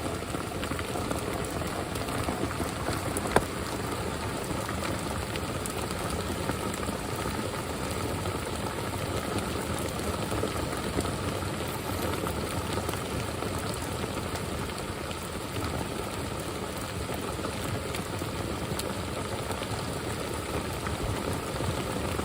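Heavy rain drumming steadily on the roof and shell of a bike camper, a constant dense patter heard from inside, with one sharper drop-like tick about three seconds in.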